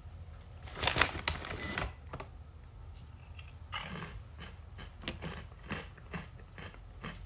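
Crinkling of a Pringles Mingles snack bag for about a second as chips are taken out, a shorter rustle a few seconds later, then a run of small crisp clicks of chips being bitten and chewed.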